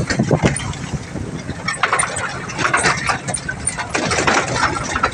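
Boom truck heard from its open cargo bed while driving down a rough dirt track: the engine runs under a dense, irregular rattling and clattering of the metal bed, the loose planks and the hanging crane gear.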